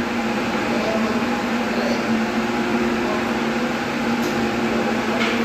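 Steady machinery hum with a constant low tone.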